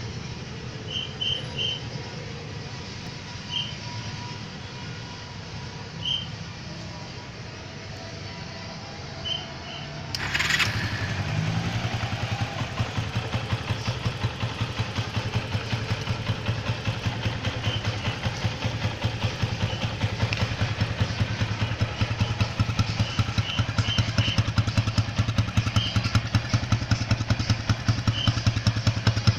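Kawasaki Boss 175's single-cylinder four-stroke engine, restarted warm after a ten-minute stop following a ride in traffic: about ten seconds in it starts and settles into a steady, evenly pulsing idle.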